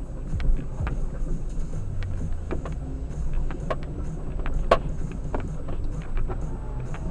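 A vehicle driving over a rough road: a steady low rumble with irregular knocks and rattles from the bumps, one sharper jolt near the end.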